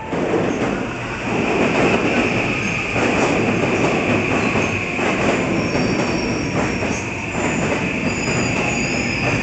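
JR West 323 series electric commuter train pulling along the platform. Its wheels rumble and clack over the rail joints, with a steady high squeal and thin high-pitched squeals in the second half.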